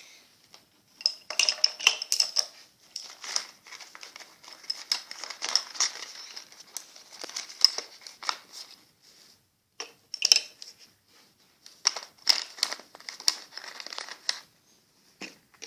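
Clear plastic pencil pouch crinkling and rustling in irregular bursts as it is handled and opened at its zip.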